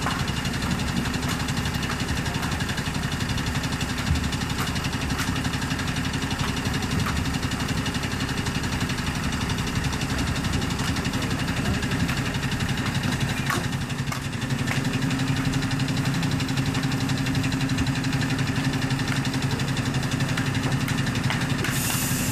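Fire truck's diesel engine idling steadily, growing a little louder about two thirds of the way in.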